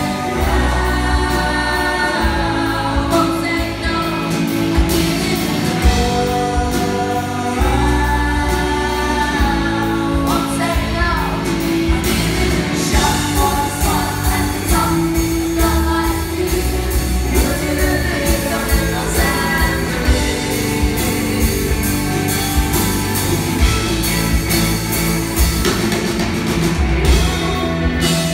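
Rock band playing live, a woman singing long melodic lines over electric guitars, bass and drums.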